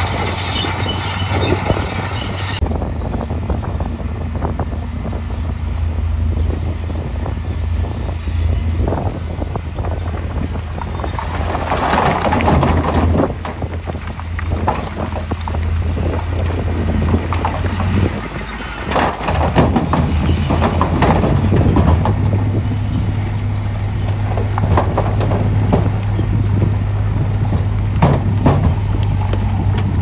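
Heavy diesel machinery running with a steady low drone, first a Komatsu D58E bulldozer, then a dump truck with its bed raised. Dirt and rocks slide out of the tipping bed in rushing, clattering pours, loudest a little before the middle and again a few seconds later.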